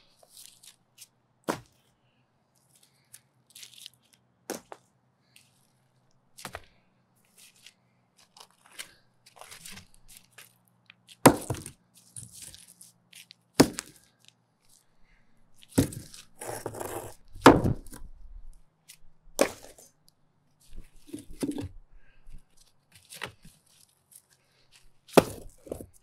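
Concrete sidewalk slabs being broken up with hand tools. About nine sharp cracking strikes land irregularly, the loudest a little before and a little after the middle, with gritty scraping and clattering of broken concrete between them.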